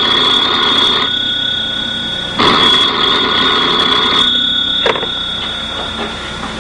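Telephone bell ringing in two long rings, the second stopping a little after four seconds in, followed by a single sharp click about five seconds in.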